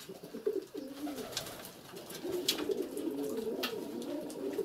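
Domestic pigeons cooing, several wavering coos overlapping, almost continuous in the second half.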